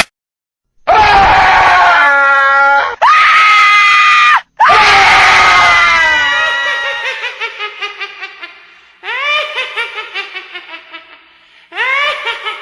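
Horror sound-effect screams: several loud, high-pitched shrieks that slide down in pitch. The later ones trail off in repeating, fading echoes, and fresh screams start about nine seconds in and again near the end.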